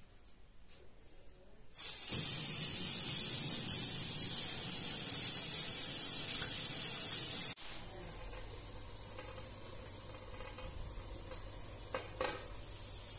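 Bathtub mixer tap turned on, water running hard from the spout into the tub, then cutting off suddenly. Then a quieter steady sizzle of pans cooking on a gas hob, with a short metal clink of a pan lid being lifted near the end.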